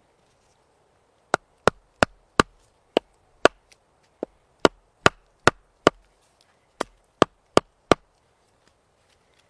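Rapid chopping: about fifteen sharp strikes, two to three a second, with a brief pause partway through, stopping about a second before the end.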